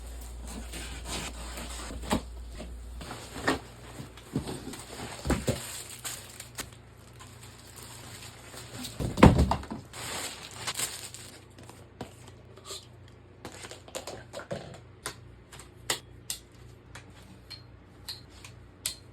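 Packaging being handled and opened: rustling, crinkling and tearing, with scattered knocks and clicks and one loud thump about nine seconds in.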